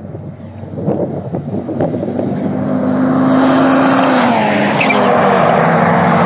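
A single-turbo Mazda RX-7 rotary and a turbocharged Toyota Starlet racing flat out side by side, their engines growing louder over the first three seconds as they close in. The note drops in pitch a little past four seconds, and the cars sweep past near the end, the pitch falling as they go.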